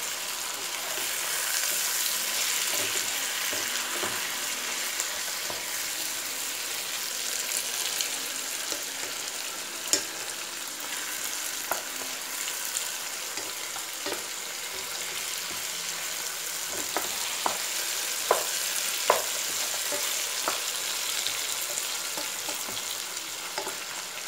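Chicken pieces sizzling in oil in a non-stick pan as a spatula stirs them. A steady frying hiss runs throughout, with scattered light taps and scrapes of the spatula against the pan, more of them in the second half.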